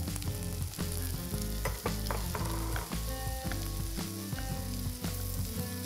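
Diced vegetables and green peas sizzling in a non-stick frying pan while a silicone spatula stirs them, with short scraping strokes against the pan.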